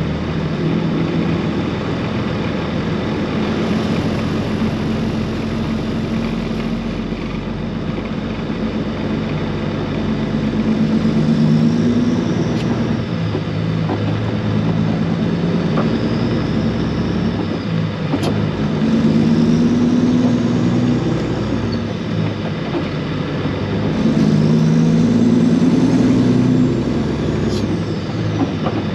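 Peterbilt semi's diesel engine pulling a heavy load up through the gears: its pitch climbs and drops back at each upshift, three times, over steady road noise.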